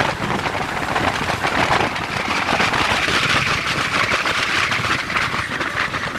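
Range Rover Classic driving off-road on a beach: a loud, steady rushing noise full of fine crackling.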